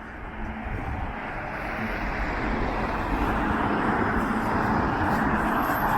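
Road traffic: a motor vehicle approaching along the street, its engine and tyre noise growing steadily louder.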